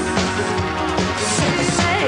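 Live synth-pop band playing a song, with synthesizers over a steady drum beat.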